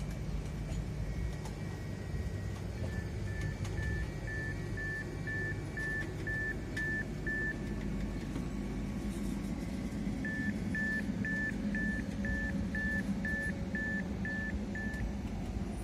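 Passenger train coaches rolling slowly past along a station platform, a steady low rumble with faint clicks. Over it, an electronic beep repeats about twice a second in two runs of about ten beeps each.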